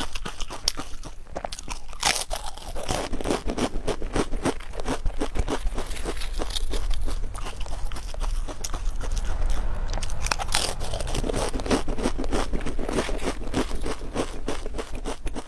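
Potato crisps being bitten and chewed: a steady run of sharp, crisp crunches and crackles, heaviest about two seconds in and again about ten seconds in.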